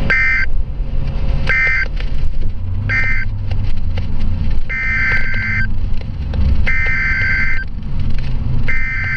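Emergency Alert System SAME digital data bursts, a buzzy two-tone signal. First three short bursts, the end-of-message code closing the previous warning. Then, from about the middle on, three longer bursts about a second each, the header announcing the next warning.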